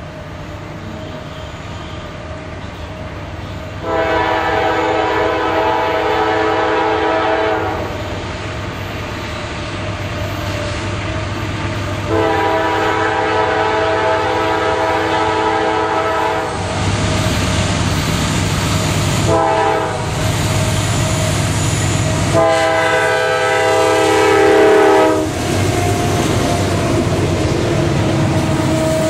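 A CSX freight train's multi-chime air horn sounds two long blasts, a short one and a long one, the signal for a grade crossing. Meanwhile the diesel locomotives' engine rumble grows louder as they approach and pass close by near the end.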